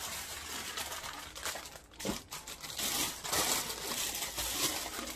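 Packaging crinkling and rustling as items are handled and packed into a box, a busy run of small crackles.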